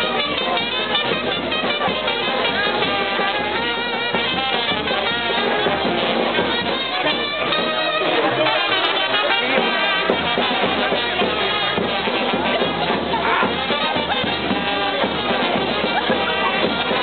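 Brass band playing music.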